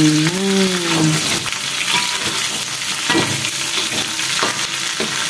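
Pekasam fish, onions and garlic sizzling in hot oil in a wok, with a metal spatula scraping and clicking against the pan as it is stirred slowly.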